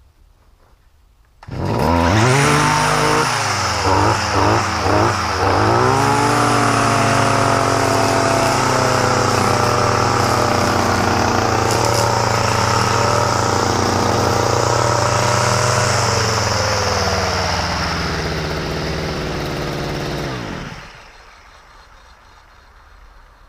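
Small Stihl two-stroke engine, freshly restored after years of sitting, running at high revs. It is blipped up and down a few times soon after it comes in, then held steady, and near the end it is shut off and winds down.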